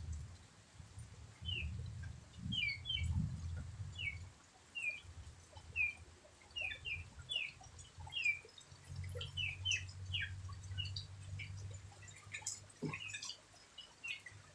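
A long run of short, high chirps, about two a second, from a small animal, over a faint low rumble, with one sharp click near the end.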